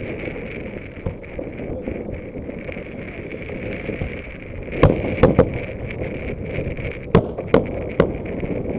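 Fireworks bursting: a series of sharp bangs, one about a second in, three in quick succession around five seconds in, and three more near the end, over a steady background of noise.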